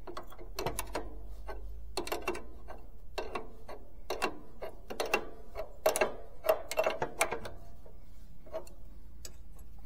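Irregular metallic clicks and clanks from hand work on the blade-wheel housing and fittings of a portable band sawmill during a blade change, busiest in the middle.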